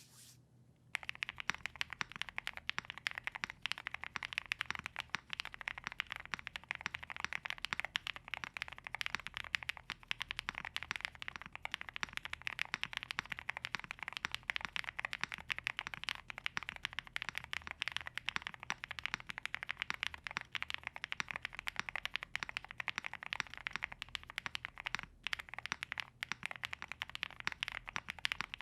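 Continuous fast typing on a custom gasket-mounted Mr.Suit mechanical keyboard: lubed Black Cherry Pie switches on a polycarbonate plate with CMK keycaps. It makes a dense, rapid stream of key clacks that starts about a second in.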